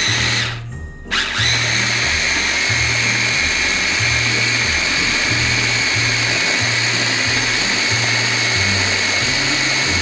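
Solimo electric mini blender, a push-down motor top on a chopper bowl, blending crushed Oreos and milk into batter. It gives a short burst that stops about half a second in, then restarts about a second in and runs steadily, its whine rising as the motor gets up to speed.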